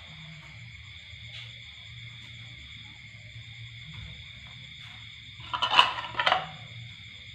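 Steady high chirring of crickets and other night insects over a low hum. Near the end a person gives two short, loud coughs, choking on food.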